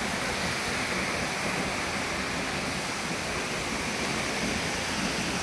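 A waterfall rushing: a steady, even wash of falling water with no breaks.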